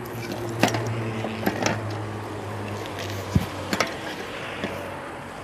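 A handbike's front wheel being worked on by hand: a few sharp clicks and knocks of metal parts, over a steady low hum.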